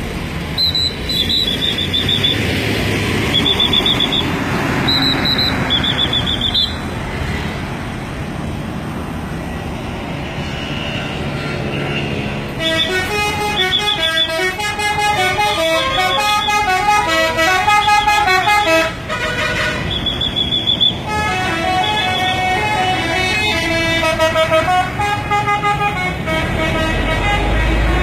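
Indonesian bus telolet horns: multi-tone musical horns playing a quick stepping melody about halfway through, breaking off briefly, then playing again. Engine noise and short high beeps run under the first part.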